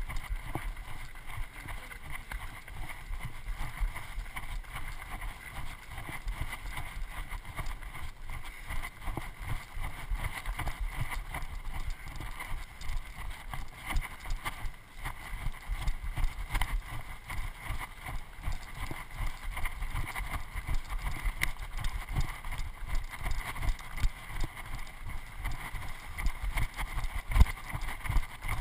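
A trail runner's footfalls on a rocky dirt path, heard as a steady stream of thuds and jolts through a body-mounted action camera, with a harder knock near the end.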